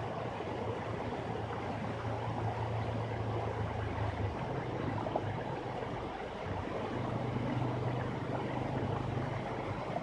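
Small waterfall cascading over rock ledges into a pool: a steady, even rush of falling water, with a low hum underneath that shifts slightly about four seconds in and again near seven seconds.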